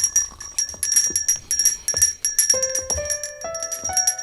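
A handbell rung rapidly and continuously, its repeated strikes ringing over each other. From about halfway, a keyboard instrument plays an ascending scale of single notes over the bell.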